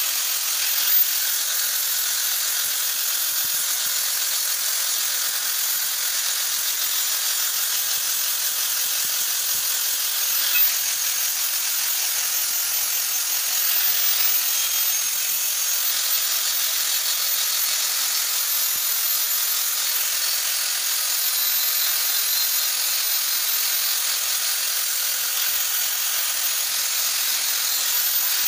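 Angle grinder running with its disc grinding rust off an iron pipe: a steady high-pitched whine over a gritty hiss, with two short louder spikes, one about a second in and one near the middle.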